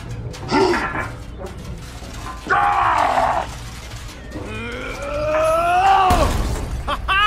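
Straining grunts and groans, as of someone heaving at a heavy load, ending in one long groan that rises and then falls in pitch. A low steady hum runs underneath.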